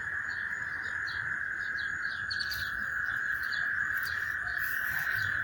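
A dense, steady chorus of frogs calling after heavy rain, with short falling chirps repeating above it.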